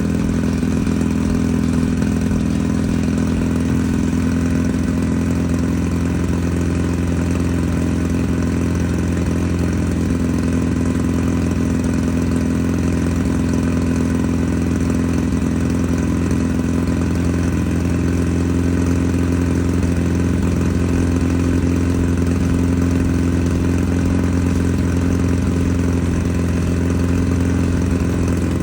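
Air-cooled VW Beetle 1776cc flat-four engine idling steadily at a constant speed.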